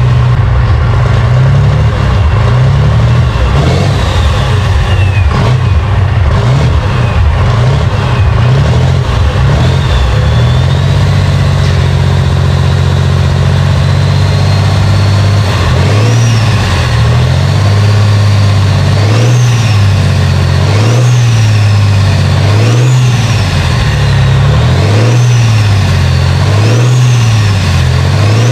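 Turbocharged six-cylinder engine of a modified John Deere 4020 pulling tractor running with a high turbo whine, then revved over and over from about halfway through, roughly once every two seconds. Each rev brings a rising turbo whistle that falls away as the revs drop.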